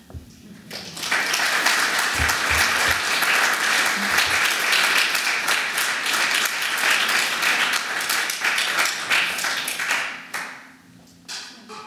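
Audience applauding at the end of a lecture, a dense patter of clapping that starts about a second in and dies away near the end.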